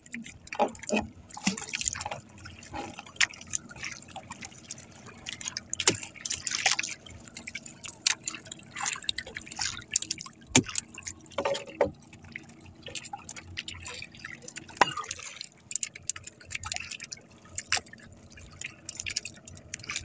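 Irregular drips and small splashes of water, with occasional sharp knocks, as a wet fishing hand line is hauled in over the side of a wooden outrigger boat.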